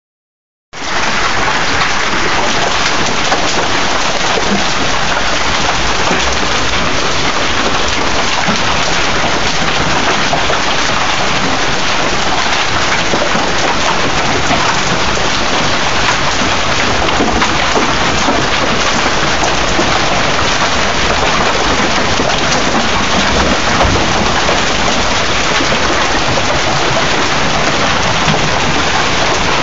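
Heavy hailstorm: a dense, steady patter of hailstones striking surfaces, loud and unbroken after starting abruptly under a second in.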